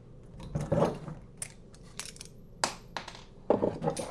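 Metal door-knob hardware clinking and clicking as an old interior doorknob is taken off the door: a string of sharp separate clicks, with a louder metallic clatter near the end.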